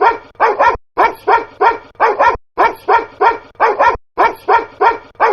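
A recorded dog bark sample looped as a DJ sound: quick barks in tight groups of about five, the identical group repeating about every second and a half.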